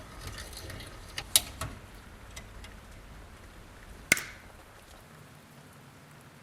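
Small metal parts and hand tools being handled on a workbench: three quick sharp clicks, then a single louder click with a short metallic ring a few seconds later.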